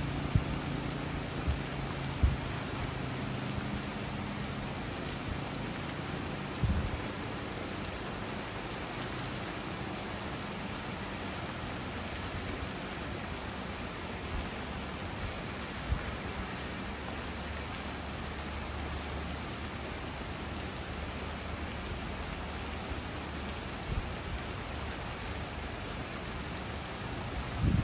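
Steady rain falling on a street and tree leaves, with a few short low thuds scattered through it and a faint low hum in the second half.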